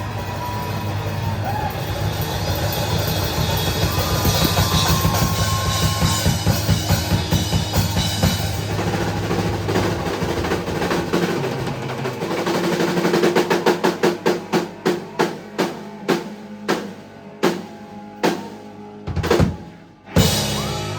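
Live rock band with drum kit playing the end of a song. Dense full-band playing with rapid drum rolls gives way, about 13 seconds in, to a run of full-band hits that come slower and slower, about ten in all, ending on a last crash just before the end.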